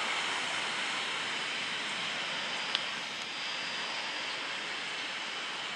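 Helibras AS350 B2 Écureuil helicopter flying past at a distance: a steady rush of turbine and rotor noise with a faint, even whine. A single brief click about three seconds in.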